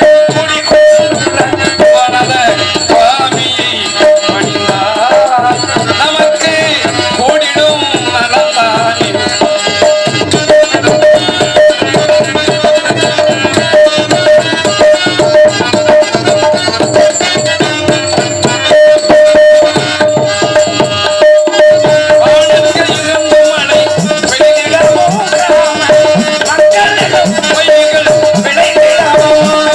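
Live Tamil folk music: a hand-played double-headed barrel drum beats a quick, dense rhythm under a wavering melody and a steady held drone note.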